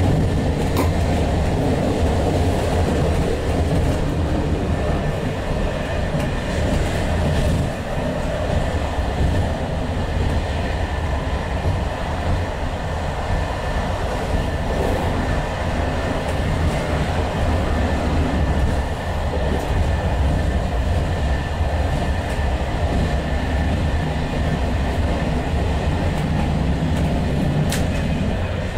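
Passenger train running along the line, heard from inside the carriage: a steady rumble of wheels on the rails and carriage noise.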